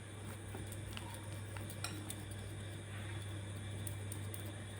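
Faint, scattered light clicks and clinks of kitchen things being handled, over a steady low hum.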